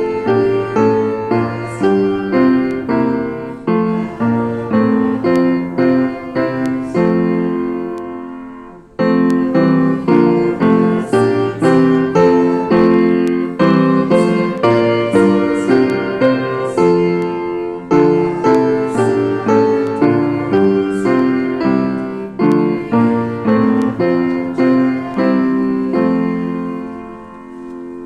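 Piano playing a hymn in full chords: one phrase fades out about nine seconds in, the playing starts again at once, and a final held chord dies away at the end.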